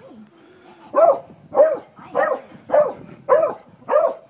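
A beagle-type dog barking at a rooster: six short, evenly spaced barks about every half second, starting about a second in.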